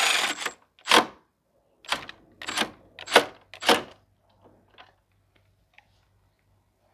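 Ratchet wrench tightening a fastener in short strokes: five sharp clicking strokes about half a second apart in the first four seconds, then a few faint ones.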